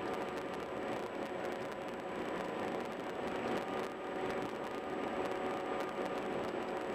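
Steady road and tyre noise of a car driving at highway speed.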